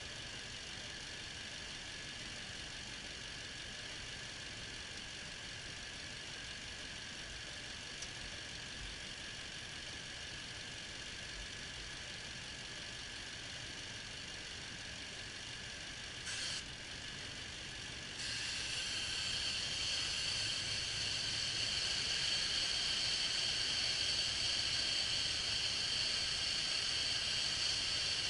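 Toyota Tundra 4.7-litre V8 idling under the hood with a steady hiss. About 18 seconds in, after a brief rustle, the hiss grows louder and higher as the opened vacuum hose sucks in air while Sea Foam is poured into it.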